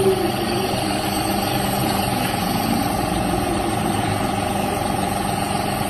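A compressor nebulizer's pump running with a steady, unchanging hum.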